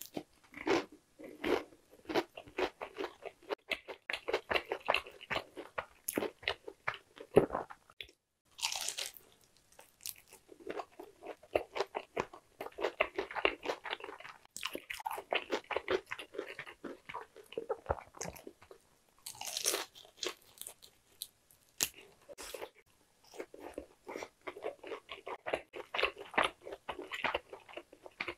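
Close-miked crunching and chewing of crispy boneless fried chicken, continuous and irregular, with a few sharper, louder bites through the crust.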